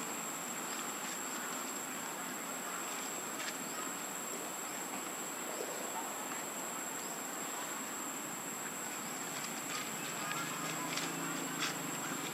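Insects droning outdoors: one steady, high-pitched buzz that holds unbroken over a hiss of background noise. A few light clicks come near the end.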